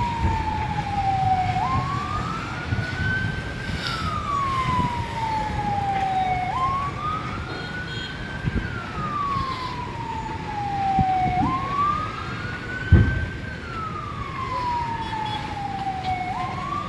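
Fire engine siren wailing, its pitch sliding slowly up and then down about every five seconds, over steady low background noise. A single thump stands out about three-quarters of the way through.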